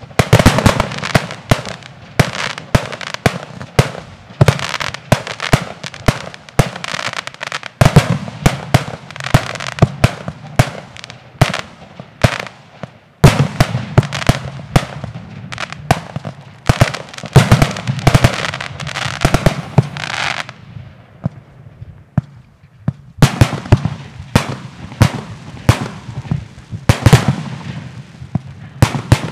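Fireworks display: aerial shells and comets launching and bursting in rapid succession, many sharp reports a second, with a short lull about two-thirds of the way through before the firing picks up again.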